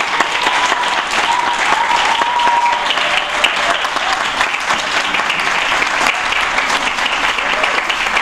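Audience applauding steadily, a dense patter of many people clapping.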